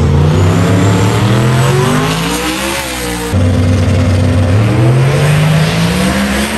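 Drag-racing car engines at full throttle accelerating down the strip, loud. The pitch climbs steadily, drops abruptly about three seconds in, then climbs again.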